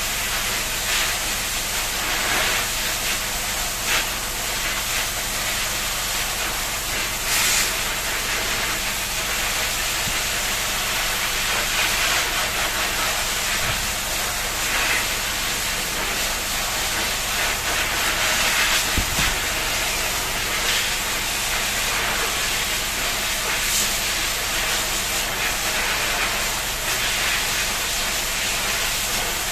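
Water spraying from a shower head in a steady hiss while a pet bird is showered, with a few brief louder flares of spray.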